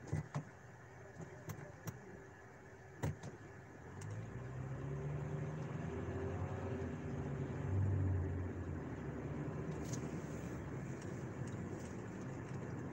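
Car heard from inside the cabin: a few seconds of quiet idling with a few sharp clicks, then the engine note rises as the car pulls away and accelerates, settling into a steady drone of engine and road noise.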